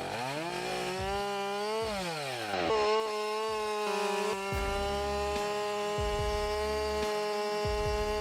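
Two-stroke chainsaw revving up and dropping back twice. About three seconds in it is held at full throttle, cutting steadily through wood.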